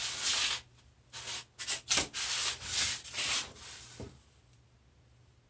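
A run of irregular scratchy rubbing strokes, some short and some about half a second long, that stop about four seconds in.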